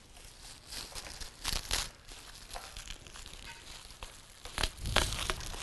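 Sticky plastic shrink wrap being torn and crinkled off steel workbench legs by hand, in irregular rustling bursts, loudest about a second and a half in and again near the end.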